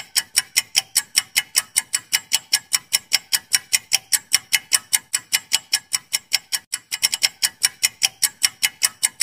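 Ticking-clock sound effect for a quiz countdown timer: sharp, even ticks at about four a second, with a brief stumble in the rhythm about seven seconds in.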